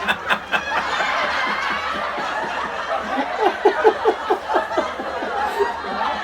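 People laughing at a corny joke, with a run of rhythmic 'ha-ha-ha' laughter in the middle.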